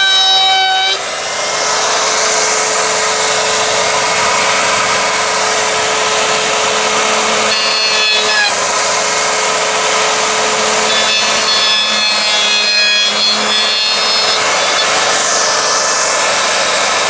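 Handheld electric router running at speed and cutting along the edge of a plywood sheet: a steady motor whine over the rasp of the bit in the wood. The level dips briefly about a second in, and the whine shifts in pitch a few times as the bit works the cut.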